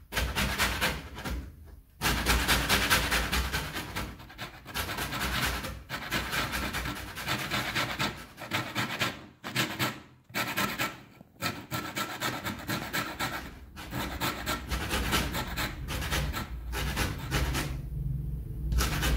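Sour orange peel being scraped over the fine teeth of a stainless steel box grater: quick rasping strokes in runs, broken by brief pauses. It is taking off only the thin outer zest.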